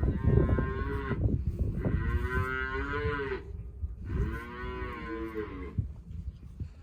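Young dairy calves mooing: several long drawn-out calls, each about a second and a half, over low rumbling background noise.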